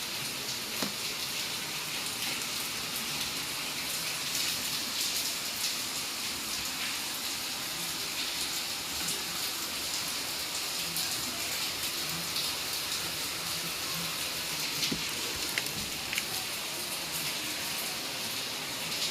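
Steady hissing noise with scattered light ticks, like rain falling.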